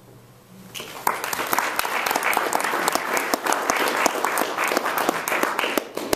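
Audience applauding: a dense run of many hand claps that starts about a second in and tapers off near the end.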